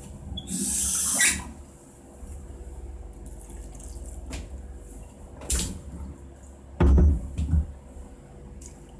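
Liquid poured into a pot onto raw napa cabbage leaves, a loud hissing pour near the start that turns to quieter splashing over the leaves. A few dull knocks follow, the loudest about seven seconds in.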